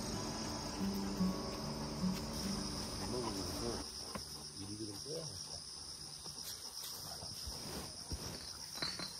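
A chorus of insects chirring in a steady, fast-pulsing high trill. Over the first few seconds, the tail of some guitar music fades out underneath it.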